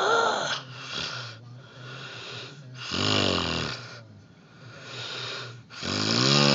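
A man snoring loudly: three rasping snores about three seconds apart, with quieter breaths between them.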